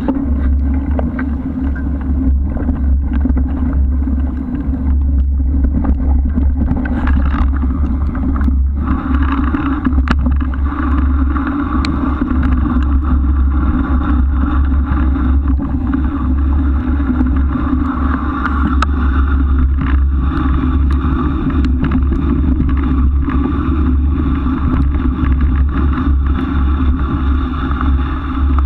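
Steady riding noise picked up by a camera mounted on a moving bike: a constant low rumble with a steady hum above it and scattered sharp ticks.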